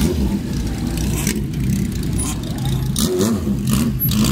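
Classic air-cooled inline-four motorcycles, including a Kawasaki KZ1000 and a Honda CB750 Four, running with a steady low exhaust note and brief throttle blips as they pull away at walking pace.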